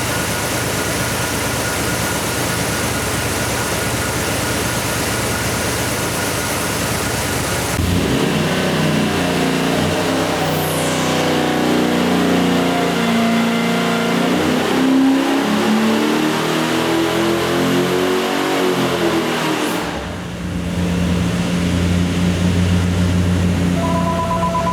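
Pontiac engine running on an engine dynamometer: it runs steadily for several seconds, then its pitch climbs and falls back over about twelve seconds during a dyno pull, dips briefly, and settles to a steady idle.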